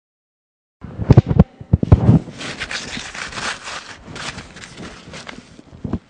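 A run of sharp knocks and thumps, then a rough rustling and scraping with many small clicks, and a few more thumps near the end.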